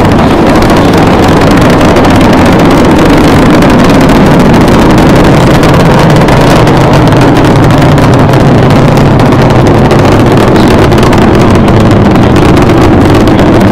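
Space shuttle launch: the rocket engines' loud, steady rumble during ascent, with no pauses or changes.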